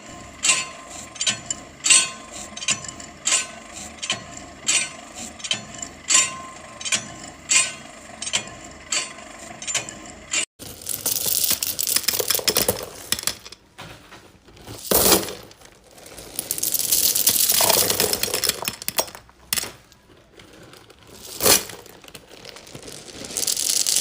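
A run of sharp, light clicks or clinks, about two a second, then after an abrupt break, longer swells of scraping and crunching.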